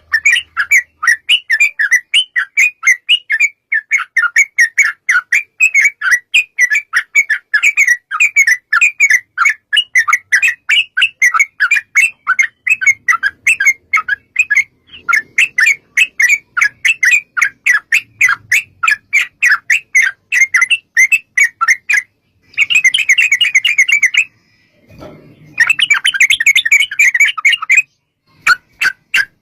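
Yellow-vented bulbul (trucukan) calling: a long run of short, clear chirps at about four a second, then two denser, harsher chattering bursts near the end.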